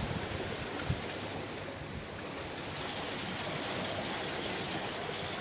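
Wind buffeting the microphone over a steady rush of wind and open water, with one brief knock about a second in.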